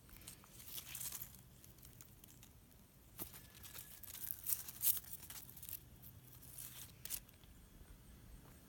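Tomato plant leaves and stems rustling as a hand pushes through the foliage, in several short crinkly bursts.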